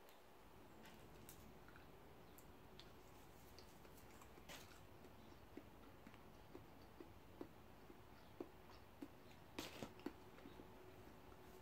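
Near silence: faint room hum with scattered light clicks and taps from wooden cutlery and a disposable tray and syrup tub being handled, and a short flurry of taps about ten seconds in.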